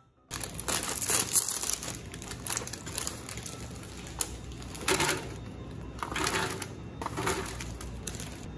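Plastic snack wrappers crinkling and crackling as packs of Homerun Ball cream-puff snacks are handled and opened. The puffs are tipped from a plastic tray into a parchment-lined air fryer basket. The crinkling comes in irregular handfuls, loudest about a second in and again in three bursts in the second half.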